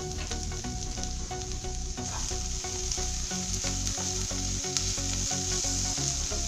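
Chopped cabbage, peas and onion sizzling in hot oil in a nonstick pan, with a wooden spatula stirring and scraping through them from about halfway on.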